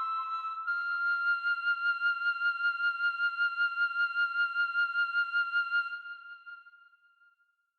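Background music: a single high held note with a fast, even pulse, fading out about six seconds in.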